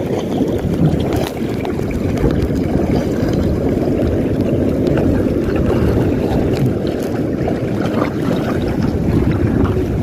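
Steady wind noise on the microphone over the wash of sea water.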